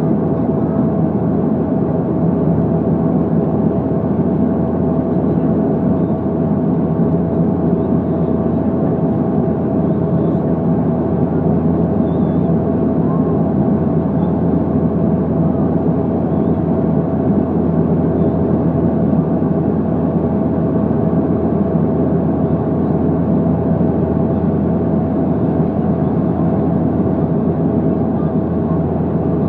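Steady cabin noise of a jet airliner on approach to landing with its landing gear extended: an even, loud drone with a few held tones running through it.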